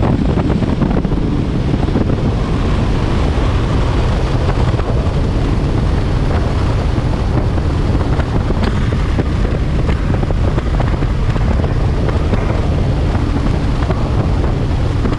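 Steady wind rush buffeting the microphone as a 2021 Bass Cat Lynx bass boat runs across the water. Its Mercury 250 Pro XS outboard and the hull's water noise run underneath.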